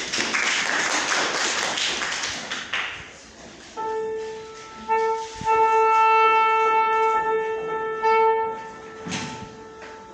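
A soprano saxophone sounds a long, steady held note starting about four seconds in, swelling and then fading near the end. Before it, for the first three seconds, there is a loud rushing noise.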